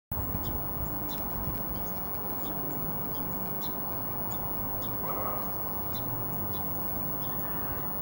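Short, sharp high chips from small birds, a dozen or so at irregular intervals, over a steady low rumble of outdoor background noise.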